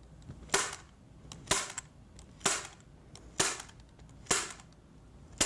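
Light-duty manual staple gun firing staples through wet watercolor paper into a Homasote board: six sharp snaps, about one a second.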